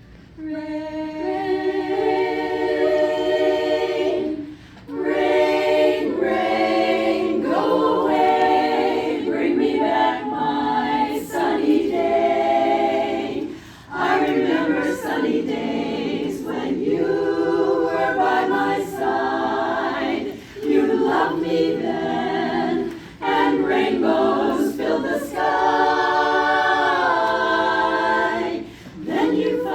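Voices singing a cappella as a choir, in sustained chords, with short breaks between phrases every few seconds.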